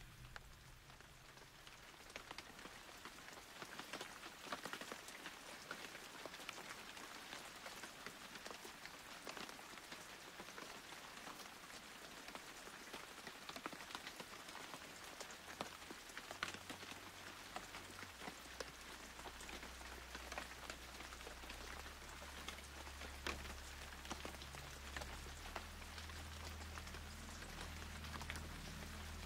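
Faint patter of rain, many small drops ticking over a light hiss. A low drone fades in about halfway through and grows fuller near the end.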